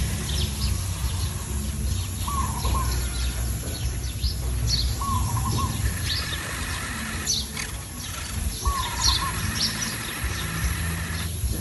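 Wild birds chirping and calling, one of them repeating the same short hooked call every few seconds, over a steady low rumble.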